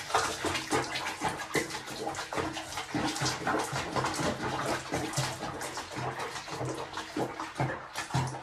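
Bathwater splashing and sloshing in a small basin around a bathing cat, a continuous patter of small splashes.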